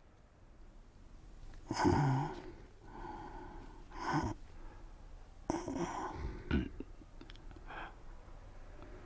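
A man's heavy breaths and sighs, in several short bursts about two, four, six and eight seconds in.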